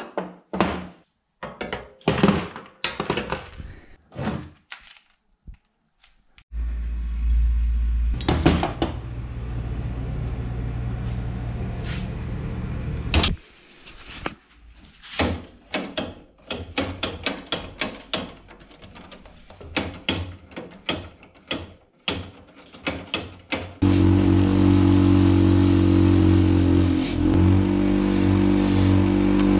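Knocks and clicks of handling parts. Then a small petrol engine runs steadily for about seven seconds and stops suddenly, more clicks follow, and about 24 seconds in the engine starts again and runs at a steady, even note.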